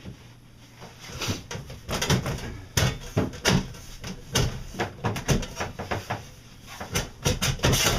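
Irregular knocks, clunks and scrapes as the stainless galley tray and the wooden counter parts around it are handled and fitted, busiest from about a second in.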